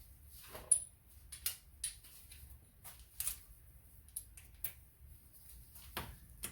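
Scattered small metallic clicks and taps of hand tools and engine parts being handled during an engine teardown, with a sharper click about a second in.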